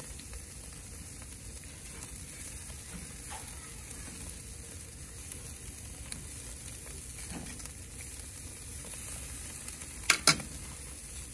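Whole mackerel scad sizzling on a grate over charcoal, a steady hiss. About ten seconds in come two sharp knocks close together.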